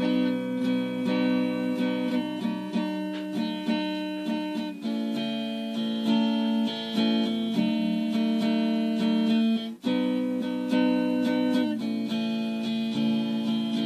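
Acoustic guitar music, plucked and strummed chords, with a brief break about ten seconds in.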